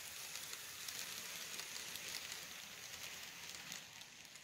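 A model passenger train rolling past close by: a faint, steady rattling hiss of its small wheels on the track, with light ticks, fading a little near the end.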